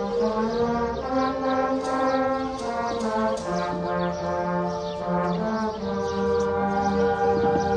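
Concert band of saxophones, brass and woodwinds playing sustained chords, moving to a new chord every second or two.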